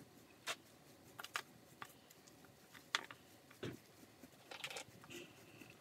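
Small hand brush scrubbing and scraping at the dirt-covered face of an old sign, heard as faint, irregular short scratches and taps, the sharpest about three seconds in, with a brief squeak near the end.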